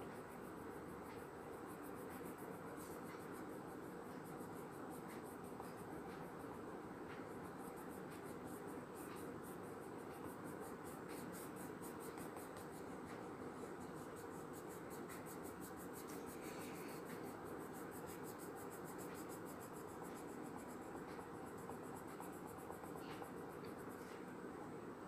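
Colour pencil scratching on paper in quick back-and-forth shading strokes, faint over a steady hiss.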